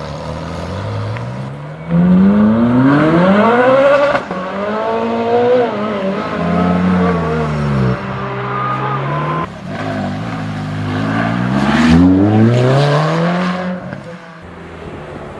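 Ferrari 458's V8 accelerating hard several times, its note climbing steeply in pitch and dropping back between pulls.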